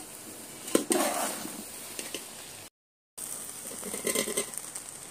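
Metal spoon stirring and turning cooked rice in a large metal pot, with scraping and a few knocks of the spoon against the pot about a second in. The sound drops out completely for about half a second past the middle.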